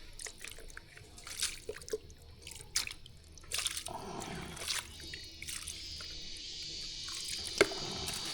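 Water dripping and splashing with scattered small clicks, then water running steadily, as from a tap into a sink, from about five seconds in.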